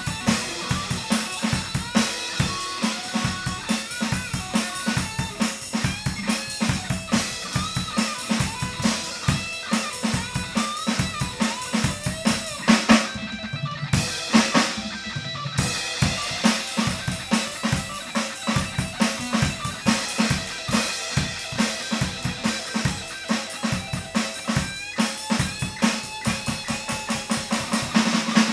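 Band music driven by a drum kit, with bass drum and snare hitting in a fast, steady beat under pitched instruments. The higher sounds briefly drop out about halfway through, then the full band comes back.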